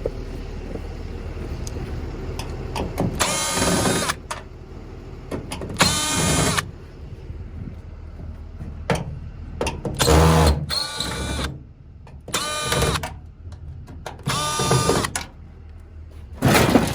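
Cordless drill/driver whining in about six short bursts of a second or so, backing out screws, with a heavier low thump about ten seconds in.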